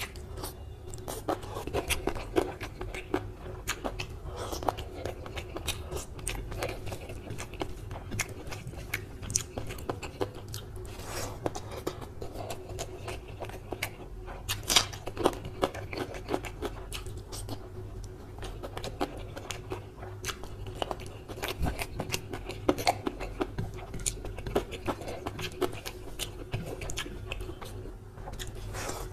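Close-miked chewing and biting as a man eats spicy chicken leg curry and rice by hand: wet mouth clicks and smacks with occasional crunches, irregular all through, over a faint steady hum.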